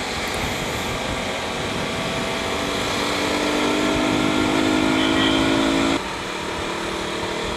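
Motorcycle engine and wind rush while riding. The engine pitch climbs slowly as it accelerates, then drops suddenly about six seconds in, as at a gear change or a throttle closing.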